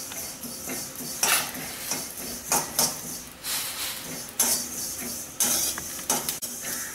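Sesame seeds dry-roasting in a steel pan, stirred with a metal spoon: irregular scraping strokes against the pan with a light hiss. A few sharp crackles near the end as the seeds start to pop from the heat.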